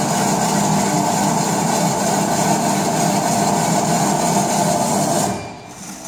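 Şahveli GDM-06 electric tantuni chopping machine running steadily while slicing liver into 3 mm fillets, then shutting down about five seconds in.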